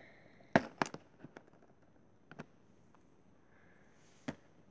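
Sharp clicks and taps from a cardboard advent calendar being handled: a quick cluster in the first second or so, the loudest about half a second in, then single ticks about two and a half and four seconds in.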